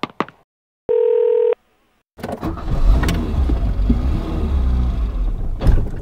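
A short steady electronic beep about a second in, followed by about four seconds of loud, low rumbling noise that swells near the end.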